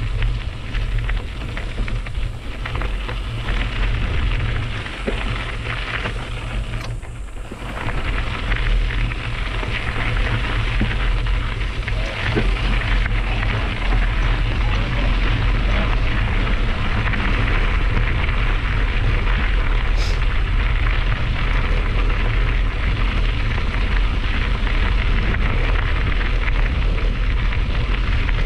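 Knobby mountain bike tyres crunching over a gravel trail while riding, under heavy wind rumble on the microphone; the noise eases briefly about seven seconds in.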